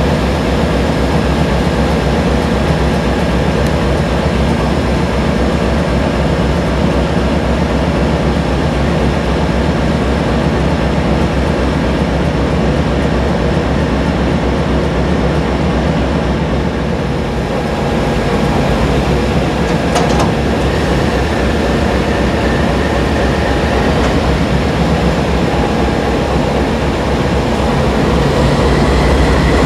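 Amtrak GE Genesis P42DC diesel locomotive at close range, its 16-cylinder diesel engine running with a steady loud drone. A brief sharp knock comes about two-thirds of the way in, and the sound grows a little louder near the end.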